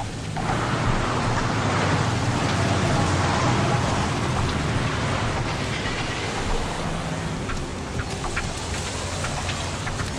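City street ambience: a steady wash of traffic noise, with a low hum underneath and a few faint clicks in the second half.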